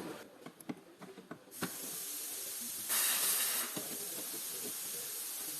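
A few light clicks, then a steady hiss of air or spray that starts abruptly about a second and a half in and grows louder for under a second around the middle.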